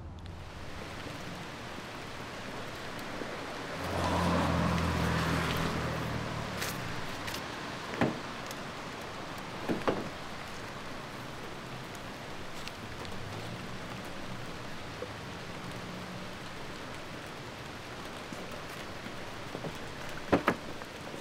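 Steady outdoor street ambience with a vehicle passing about four seconds in, rising and fading. A few sharp clicks or taps come through, two close together near the end.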